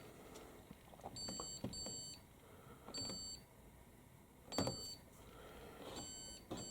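Hoover Dynamic Next washing machine's control panel beeping as the programme dial is turned: about six short, high beeps at uneven intervals, each with a faint click from the dial.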